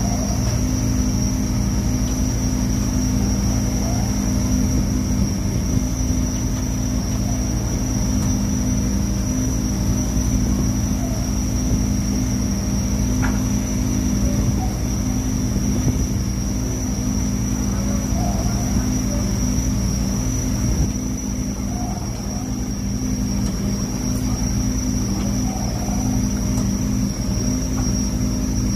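Purse seiner's engine and net-hauling machinery running with a steady low drone and a thin constant high whine while the seine net is hauled aboard.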